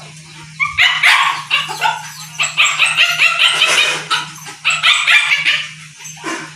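A dog barking and yapping: a rapid run of short, sharp barks with a last bark near the end, over a faint steady hum.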